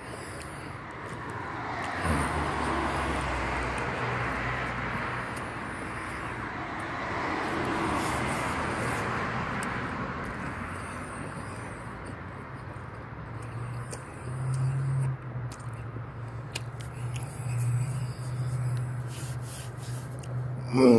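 Street traffic: a vehicle passing, its noise swelling and fading over about ten seconds, then a low steady engine hum with small rises in level.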